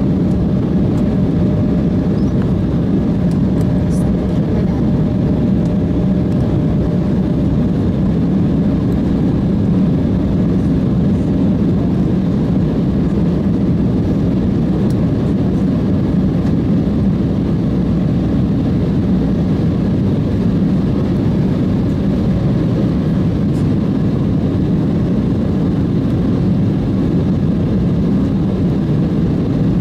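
Steady cabin noise of an Embraer E175 jet in flight: an even rush of airflow and engine hum, heaviest in the low range, with a faint steady tone running through it.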